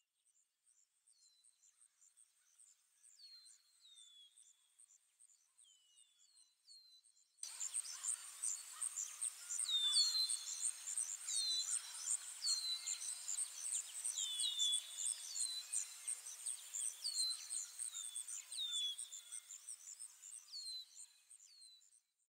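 Nature ambience of a steady, rapidly pulsing insect trill with repeated short, falling bird chirps. It is faint at first and jumps suddenly louder about seven seconds in.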